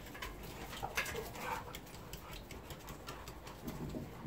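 Dogs moving about: scattered light clicks and taps, like nails and collar tags on a hard floor.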